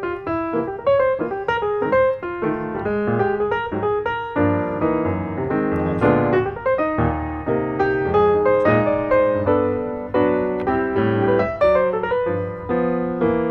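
Piano music: a steady flow of separate notes, with a fuller low part about halfway through.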